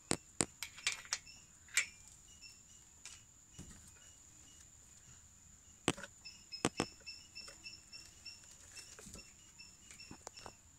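Sharp clicks and light taps of hands handling small metal parts at a scooter's kick-start shaft and oil seal, a cluster in the first two seconds and another about six seconds in. Behind them an insect chirps steadily, a few chirps a second.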